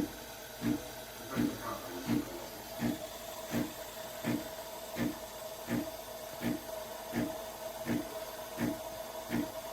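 Espresso machine pump running in even, regular pulses, about three every two seconds, over a steady hum.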